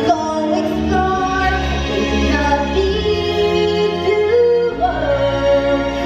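A song from a live stage musical: a singer holding long notes over orchestral-style backing music.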